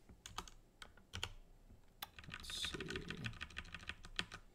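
Typing on a computer keyboard: irregular key clicks, sparse at first and coming quicker in the second half as a line of code is typed.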